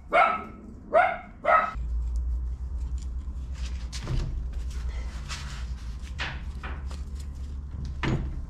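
Dachshund barking three times in the first second and a half. Then a low steady hum with scattered light metal clicks as a large wrench works a tie rod clamped in a bench vise.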